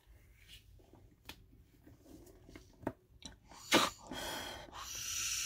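PMK-3 rubber gas mask being pulled on over the head: soft rubbing and small clicks of the rubber and straps, a sharp click near the four-second mark, then a steady hiss for about a second and a half near the end.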